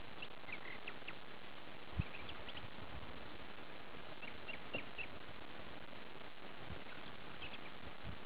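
Clusters of short, high chirping animal calls over a steady hiss, with a single dull low thump about two seconds in.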